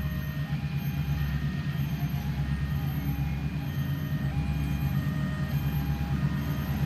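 Diesel locomotive engine running as a train approaches slowly from a distance: a steady low rumble.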